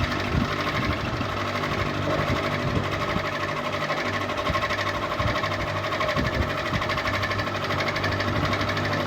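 Ceiling fan running steadily: a constant motor hum with a fast, even pulsing flutter.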